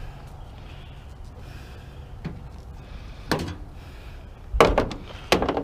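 A microwave oven being loaded into a pickup truck's bed: a couple of single sharp knocks, then a louder cluster of knocks and thuds about four and a half seconds in, over a low steady hum.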